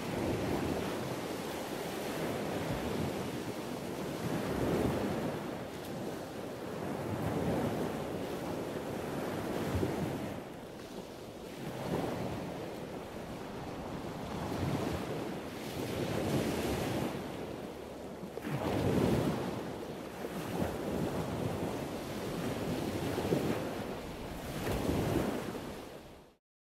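Wave-like washing noise, like surf, swelling and fading about every two seconds, then cutting off suddenly near the end.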